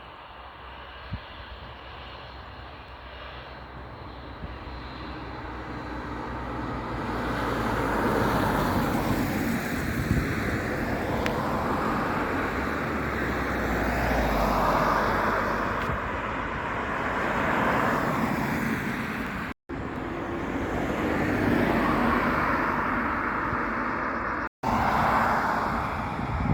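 Jet airliner engines, growing louder over the first several seconds and then staying loud with slow swells. The sound drops out suddenly for an instant twice near the end.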